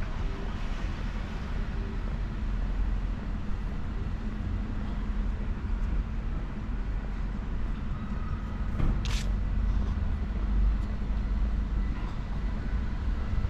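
Steady low rumble of a running vehicle, with a short hiss about nine seconds in.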